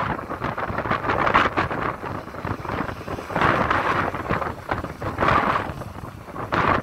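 Hidromek 230LC crawler excavator's diesel engine running under load as it lifts and swings a full bucket of soil, with gusts of wind buffeting the microphone in irregular swells.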